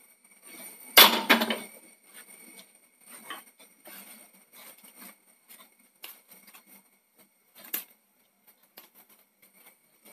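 Clay cooking pot set down on a gas hob's metal pan support with one loud knock about a second in. After it comes faint, irregular crackling of coconut oil heating in the pot.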